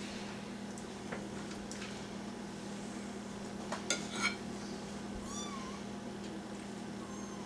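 A knife and spoon clink and scrape against a sour-cream tub and a plate, loudest in a quick cluster about four seconds in, over a steady hum. A little after five seconds there is a short wavering high-pitched cry, with a fainter one near the end.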